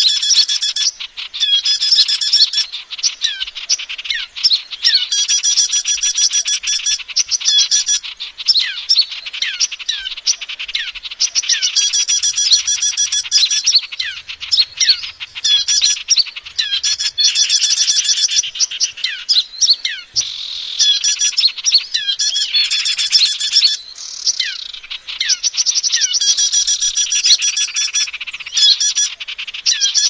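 Lure-call recording for trapping or attracting small birds: many small songbirds chirping and twittering over one another in a dense, high-pitched chorus of rapid trills and short sliding notes, the same phrases recurring again and again.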